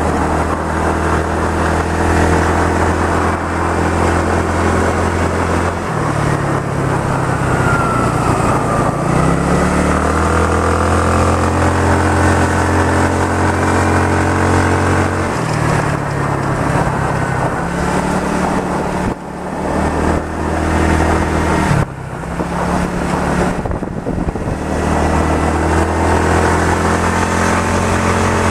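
Motorcycle engine running while riding, its note dropping and climbing several times as the throttle eases off and opens again through the bends. This runs over a steady rush of road and wind noise.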